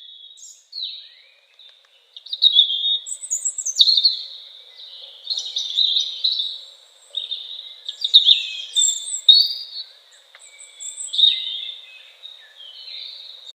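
Songbirds singing, a run of high chirps and warbled phrases with short pauses between them, cut off abruptly at the end.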